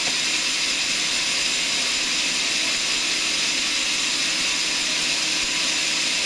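Sawmill saw machinery running steadily: an even, high rushing noise that holds one level with no change.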